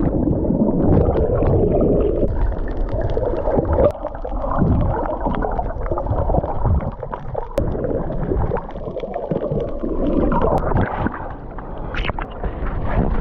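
Muffled underwater gurgling and bubbling of water heard through a submerged camera, with a brief splash near the end as it breaks the surface.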